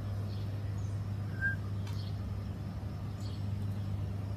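A steady low hum, with one short high chirp about one and a half seconds in.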